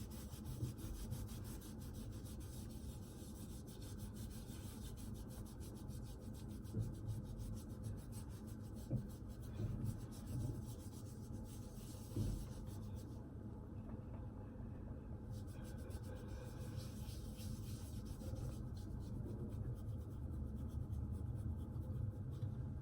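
Folded paper towel dampened with alcohol being scrubbed over skin: a faint, steady rubbing, with a few small knocks.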